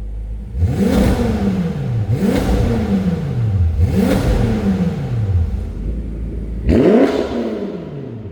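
BMW M5's twin-turbo V8 blipped four times through a de-catted turbo-back active exhaust. Each rev shoots up quickly and then falls back slowly toward idle.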